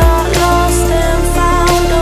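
Background music with a steady beat and sustained melody notes.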